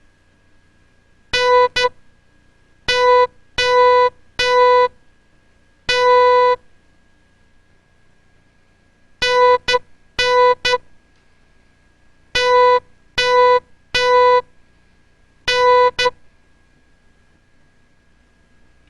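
Morse code sent as a buzzy electronic beep tone of one steady pitch, in short dits and long dahs. The characters come in tight groups with long silent gaps between them, as a practice exercise of words to decode by ear.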